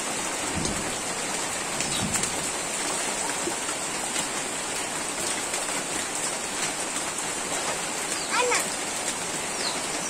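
Steady downpour of rain, with occasional small splashes of bathwater in a plastic bucket. A brief high call rises and falls about eight and a half seconds in.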